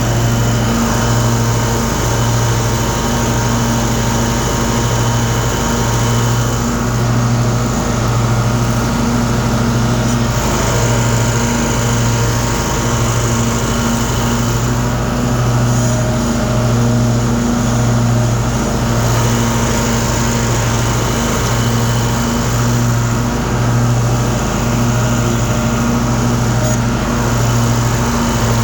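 Cub Cadet RZT 54-inch zero-turn mower's 24-horsepower engine running with the blades engaged, cutting through tall, wet grass. A steady, loud engine drone with a slow, even throb about every second and a half.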